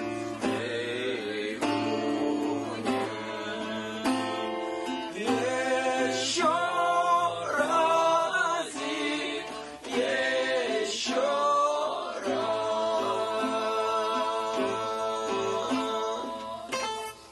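A woman singing a song to acoustic guitar strumming, the sung notes held and sliding in pitch over chords strummed about once a second; the song ends just before the end.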